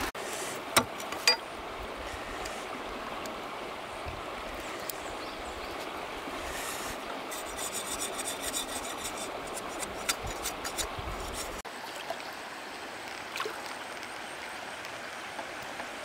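Steady rush of flowing stream water, with a few sharp clicks in the first second or so. The sound changes abruptly about two-thirds of the way through.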